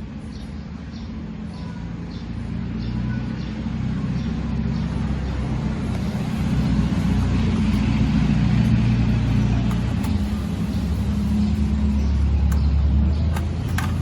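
A steady low mechanical rumble that swells louder over the first several seconds, with faint regular ticking underneath at the start.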